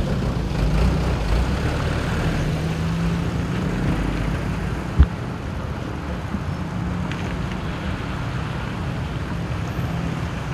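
Steady road traffic noise with a low rumble of vehicle engines, broken by a single sharp knock about halfway through.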